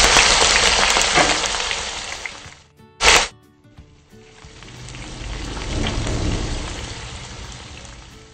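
Chicken breast sizzling in hot olive oil in a nonstick frying pan. The sizzle fades away, comes back as a short loud burst about three seconds in, then swells up again and slowly dies down.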